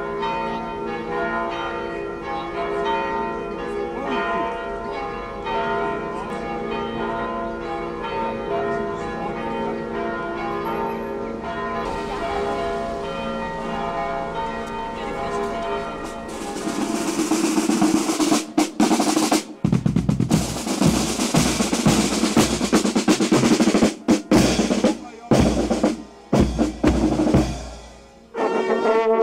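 Church bells pealing, then from about halfway a loud snare drum roll from a marching band, broken by a few abrupt gaps. Near the end a brass band begins to play.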